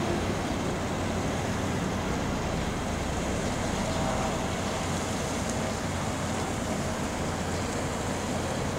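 Steady low rumble of city traffic mixed with river boat engines.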